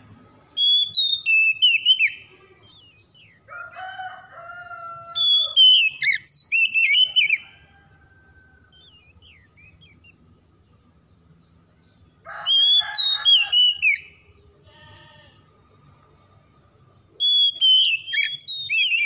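Oriental magpie-robin singing in four loud bouts of quick, varied whistled phrases with short pauses between them. The bird is in full, vigorous song. Some phrases carry lower, harsher notes.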